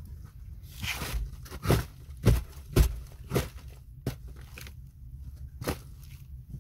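A person moving about and handling things right by the microphone: a string of about eight sharp knocks and crunches, the loudest in the middle, over a low steady hum.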